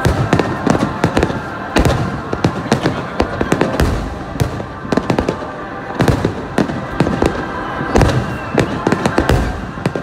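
Aerial fireworks going off in a rapid barrage: many sharp bangs and crackling bursts, with heavier booms about four and eight seconds in.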